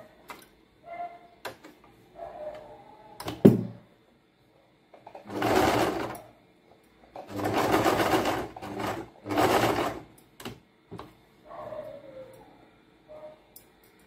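Electric household sewing machine stitching in three short runs of a second or so each, starting about five seconds in, with a sharp knock a little before the first run.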